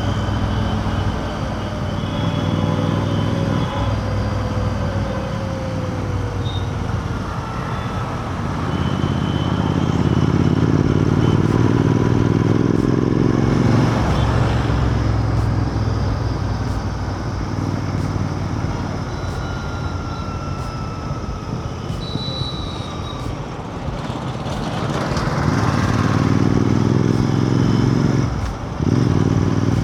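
Royal Enfield Continental GT 650's 648 cc parallel-twin engine running on the move. It pulls up through the revs twice, and each climb cuts off sharply as the throttle closes or a gear changes, over steady road noise.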